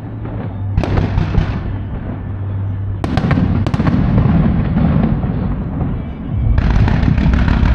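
Aerial firework shells bursting: sharp reports about a second in, a quick cluster around three seconds in, then a dense run of crackling near the end over a deep rumble.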